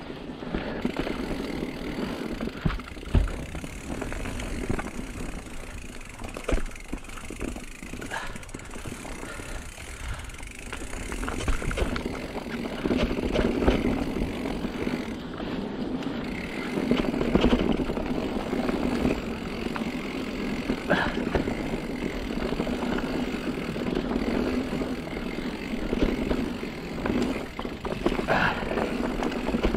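Mountain bike riding down a dirt trail: the tyres rumble over the ground, and the bike rattles and jolts with occasional sharp knocks.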